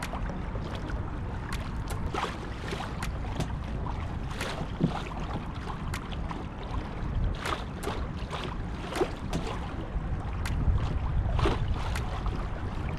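Wind rumbling on the microphone, with water lapping and slapping against a kayak's hull in irregular small splashes.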